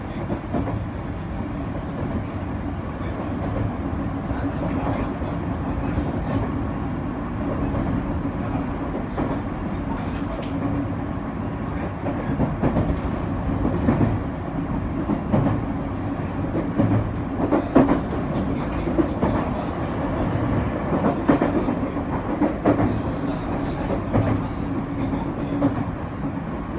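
Electric train running on the line, heard from inside the car: a steady rumble of wheels and running gear with a low hum. Clickety-clack knocks of wheels over rail joints come more often in the second half.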